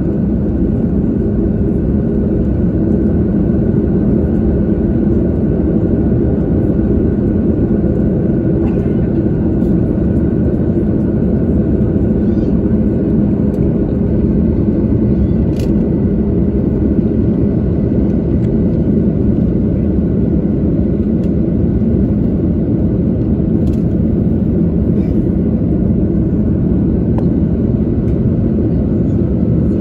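Steady cabin noise of an Airbus A330-300 in flight after takeoff, heard inside the cabin beside the wing: a loud, even, low roar of the jet engines and rushing air, with a faint steady high whine on top.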